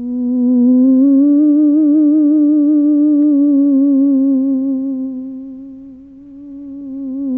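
A single eerie, wavering tone with a quick vibrato, gliding slowly up and down in pitch, in the manner of a theremin. It swells in at the start, fades about six seconds in, and swells back near the end.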